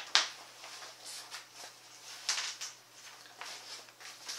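A clear plastic zippered project bag and cloth being handled, giving a run of short crinkling rustles. The sharpest crinkle, the loudest moment, comes just after the start, and more follow through the rest.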